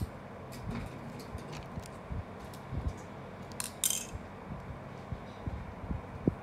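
Small scissors snipping at a plastic snack packet, with the wrapper crinkling: a scatter of light clicks and short rustles, the loudest crackle about four seconds in.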